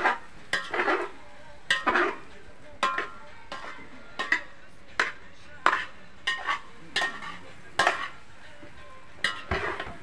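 A metal spoon stirring food in a large metal cooking pot, scraping against the pot's side and bottom in repeated sharp strokes, about one or two a second.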